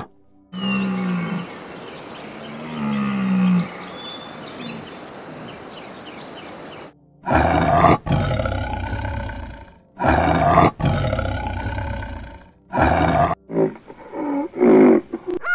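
Tiger roaring three times in loud, drawn-out calls, starting about 7 s in. Before that, low pitched calls sound over birds chirping, and short grunting calls follow near the end.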